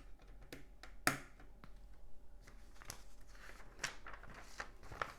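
Plastic LEGO pieces handled and pressed together: a sharp click about a second in, then a run of small clicks and rustling as pieces are picked and fitted.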